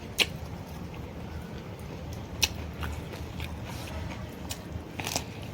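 Close-up eating sounds: chewing with a few sharp mouth clicks and smacks, about four in all, over a steady low hum.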